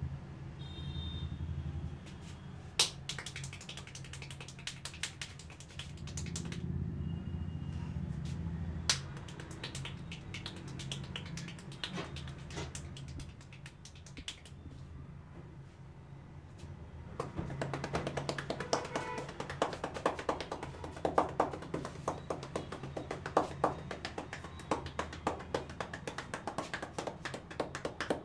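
Hand percussion of a head massage: after a couple of single sharp clicks, rapid fingertip tapping and light clapping strikes on the head begin a little past halfway, several strokes a second. Under it runs a steady low hum.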